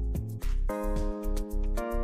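Background music with a steady beat over held chords and a deep bass, with a cymbal-like swell about half a second in.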